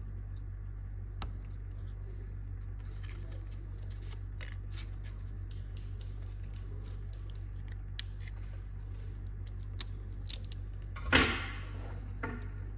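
Small clicks and taps of hands handling thin wooden sticks over a steady low hum, with one brief, louder noise about eleven seconds in and a smaller one just after.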